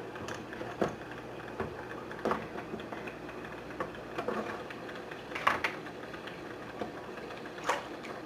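Scattered light clicks and knocks of aquarium equipment being handled and adjusted by hand, the loudest about five and a half seconds in, over a steady low hum.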